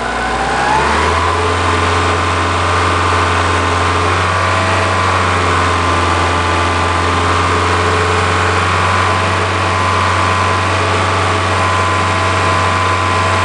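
A 2001 Kia Sportage's four-cylinder engine is revved up, rising in pitch over the first second. It is then held steady at raised revs to load the exhaust for a catalytic converter check.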